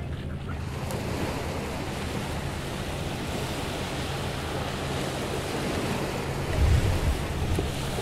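Atlantic surf breaking and washing up a sand-and-pebble beach as a steady rush that swells midway. Wind buffets the microphone in a short loud burst near the end.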